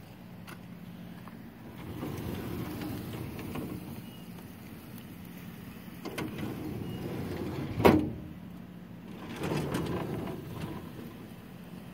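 Steel filing-cabinet drawers sliding open on their metal runners, three times, with one sharp metal clank about two-thirds of the way through that is the loudest sound.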